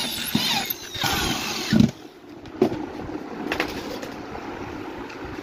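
Handheld corded electric drill boring into a laminated board, its whine rising and falling as the trigger is worked. It stops about two seconds in with a loud knock, followed by a few light clicks of handling.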